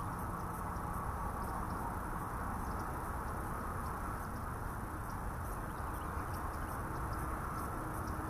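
Quiet outdoor ambience: a steady low hiss with faint insects chirping high up in an even rhythm, about three chirps a second.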